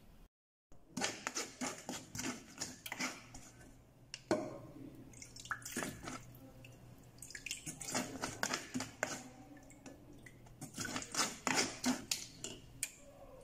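A spatula scraping and tapping inside a wire-mesh strainer over a stainless steel saucepan, with liquid dripping through the mesh into the pot: short irregular scrapes and clicks throughout.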